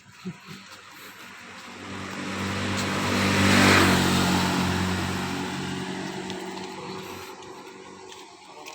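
A motor vehicle drives past. Its engine grows louder over about two seconds, peaks near the middle, then fades away over several seconds.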